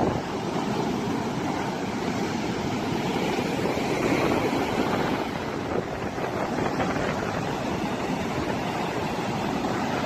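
Rough sea surf breaking on a sandy beach: a continuous wash of breaking waves and whitewater running up the sand, rising and falling only gently in level.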